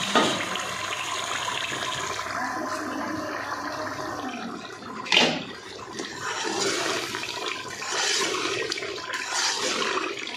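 Pieces of meat (gosht) bubbling and sizzling hard in oil and their own juices in a pressure-cooker pot, fried down at the bhuna stage, while a spoon stirs through them, with one sharp knock about five seconds in.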